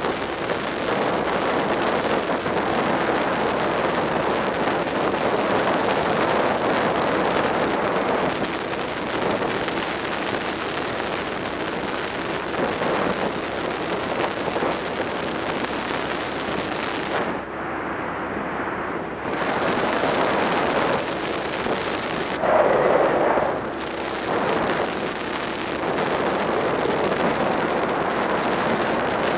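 Steady wind rush on the microphone of a Suzuki SV650 motorcycle riding along, its engine running under the wind noise; a brief louder surge about three-quarters of the way through.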